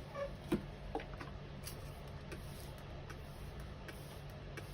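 A few light clicks and taps from small objects being handled on a workbench, the sharpest about half a second in, over a faint steady low hum.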